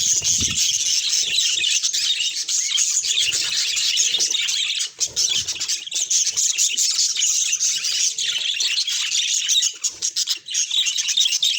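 A parrot calling in a fast, continuous stream of high-pitched chattering, with brief breaks about five seconds in and again near the end.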